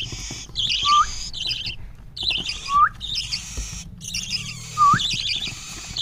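Parrot chicks giving raspy begging calls with gaping beaks, in repeated short bursts, with a short rising whistle-like call about four times.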